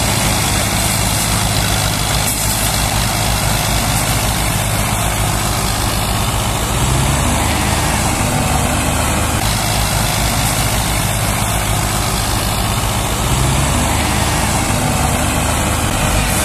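Diesel engines of a Belarus and a Massey Ferguson tractor running steadily under heavy load, pulling a loaded sugarcane trolley stuck in mud.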